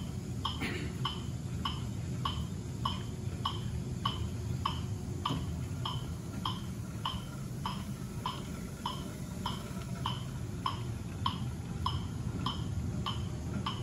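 Metronome beeping steadily at 100 beats a minute, pacing the pedal downstrokes for a 50 rpm cadence. Underneath runs a steady low whir from the Monark cycle ergometer being pedalled.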